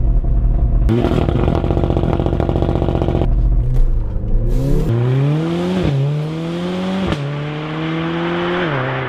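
Mercedes-AMG A45's turbocharged four-cylinder engine held at steady revs on launch control, then launching about a second in with a harsh, rapid rasp lasting a couple of seconds. Under full throttle the engine pitch then climbs and drops three times as the gearbox upshifts.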